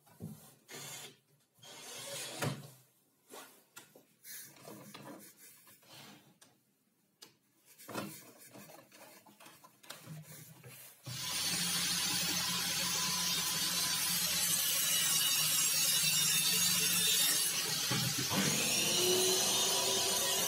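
Scattered clicks, knocks and rubbing from hand work on a plywood table saw fence. About eleven seconds in, a homemade table saw starts and runs with a steady noise and hum, and its sound changes shortly before the end as a board is fed toward the blade.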